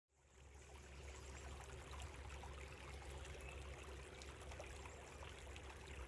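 Small creek babbling and trickling, faint and steady, fading in at the very start over a steady low rumble.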